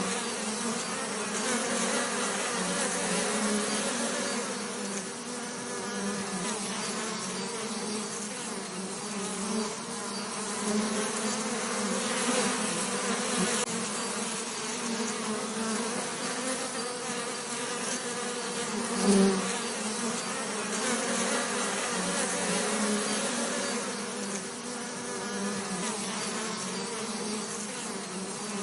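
Bees buzzing in a steady, continuous drone, with one brief louder swell about two-thirds of the way through.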